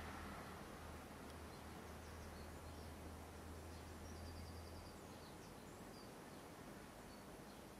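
Near-silent room tone with a faint low hum that stops about five seconds in, and a few faint high chirps, one of them a quick run of pips.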